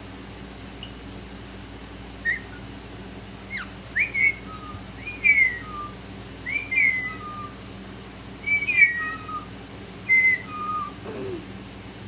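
Parrot, which the owner takes for a lilac-crowned amazon, giving a series of short whistles, many in pairs of a sliding higher note and a short lower one, about every second or two.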